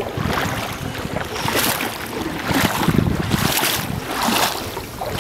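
Wind rumbling on the microphone over sea water splashing, with a surge of splashing about once a second.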